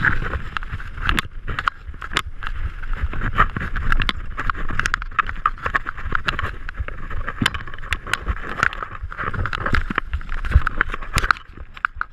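Downhill mountain bike rolling fast over rough dirt trail: the frame and parts rattle and clatter with many sharp clicks over the bumps, over a low rumble from the tyres and wind on the microphone.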